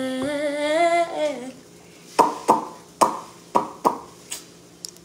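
A woman singing a line for the first second and a half, then about seven sharp kitchenware knocks with a short ring, a fraction of a second apart.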